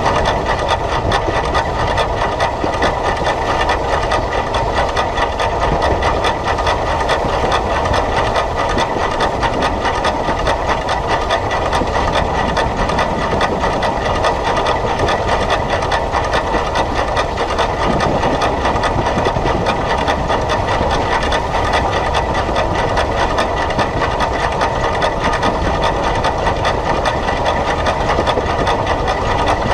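SECR H Class 0-4-4 tank steam locomotive No. 263 working along the line, picked up close by a camera mounted on the engine: a loud, steady mix of running noise with no break.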